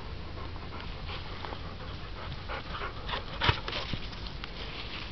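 A dog panting in short, repeated breaths, with a louder crackle about three and a half seconds in.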